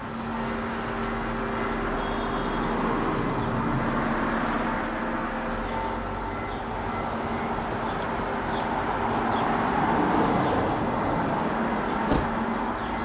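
Street traffic: a vehicle passes, growing loudest about ten seconds in, over a steady hum, with one sharp knock near the end.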